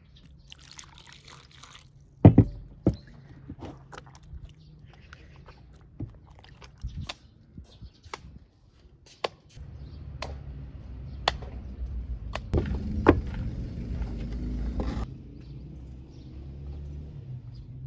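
Water poured briefly from a glass jug onto dough in a bowl, then hands working the wet dough, with scattered knocks, thumps and clicks from the bowl and table; the loudest is a thump about two seconds in.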